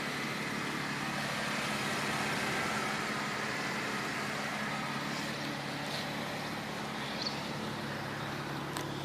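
1997 Ford Falcon EL engine idling steadily, now warmed up after a cold start.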